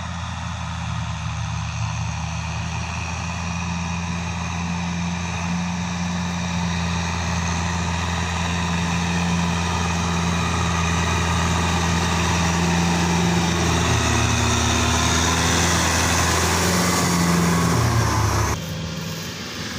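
Kubota tractor's diesel engine running steadily, growing gradually louder. The sound drops off suddenly about a second before the end.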